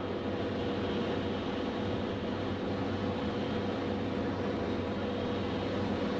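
Steady drone of an aircraft's engine heard inside its cabin, with a constant whine held on one pitch.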